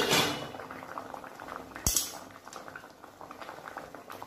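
Water with green mango pieces simmering in a metal wok, a steady patter of small bubbles. A short loud rush at the start and a single sharp metallic clink about two seconds in.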